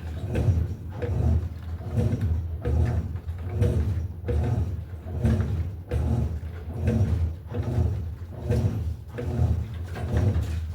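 Electrolux LTE08 top-loading washing machine agitating, its motor and agitator reversing in a regular back-and-forth rhythm of about one stroke every 0.8 seconds, with a steady low hum. The owner says the agitator's screw is working loose under the heavy load.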